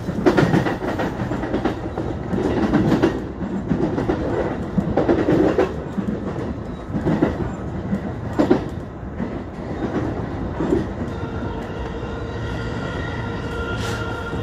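E233 series electric train's wheels clattering over rail joints and crossover points, heard from inside the front car as it slows into the station. The knocks come every second or so, thin out about three quarters of the way through, and a steady whining tone comes in near the end.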